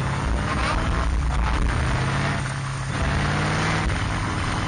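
Cheetah roadster's engine running on track, heard from the open cockpit. The engine note shifts, dips slightly about two and a half seconds in, then pulls again, under a steady hiss of wind and wet-track noise.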